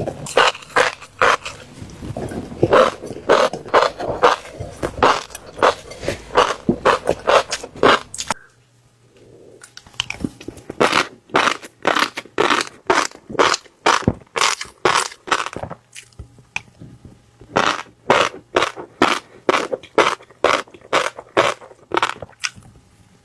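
Fish roe crunching crisply as it is bitten and chewed, with a sharp crunch two or three times a second. The crunching stops for a second or two about eight seconds in and again around sixteen seconds.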